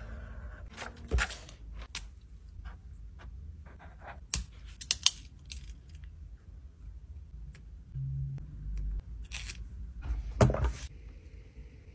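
Pen writing on a textbook page and on plastic sticky index tabs, with scattered clicks, taps and short scratches. A louder cluster of rustles comes near the end as the tabs are handled.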